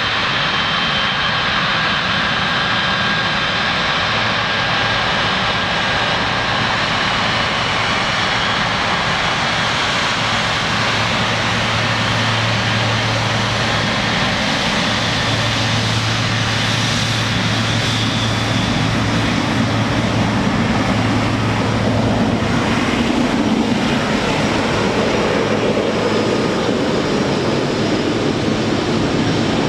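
Boeing 777 freighter's GE90 turbofan engines running at taxi power: a steady jet whine with thin high tones. It grows slightly louder and deeper in the last few seconds as the engine passes close.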